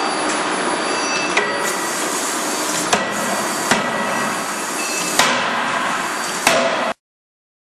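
CNC fully hydraulic die forging hammer striking a hot workpiece in the die several times, sharp blows a second or more apart over steady loud machine noise: repeated blows superimposing their energy on one forging. The sound cuts off suddenly near the end.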